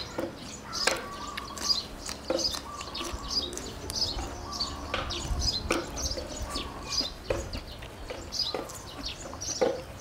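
Small birds chirping over and over, short high tweets. Now and then a sharp click or crunch of eating cuts in close by.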